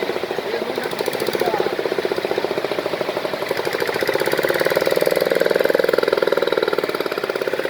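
An engine running steadily with a rapid, even knocking beat, getting a little louder about halfway through.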